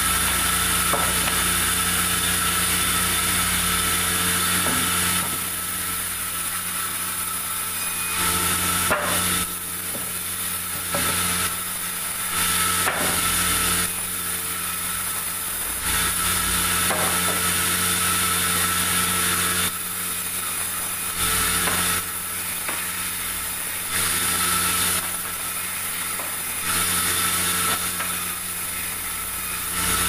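Vertical band sawmill running and cutting planks of light, soft pulai wood. The sound swells to a louder stretch every few seconds, each lasting a few seconds, as a board goes through the blade, then drops back to the running hum. There is a single knock about nine seconds in.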